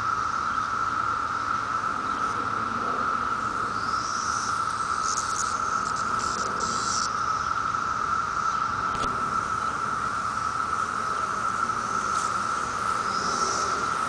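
A chorus of cicadas: one steady, unbroken, high-pitched buzz.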